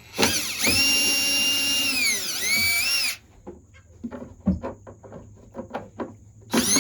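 Power drill driving a screw while a feeder is fastened in place. It runs for about three seconds, its whine sagging in pitch under load near the end of the run, then stops. A few light knocks follow, and the drill starts up again just before the end.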